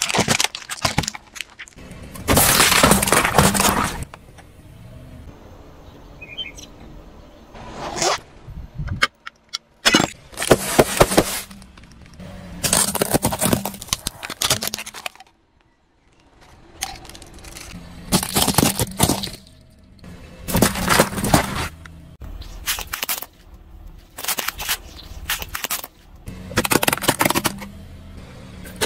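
A car tyre rolling over plastic objects and aluminium drink cans, crushing them in repeated bouts of cracking and crunching. Each bout lasts a second or two, with about eight in all, a few seconds apart.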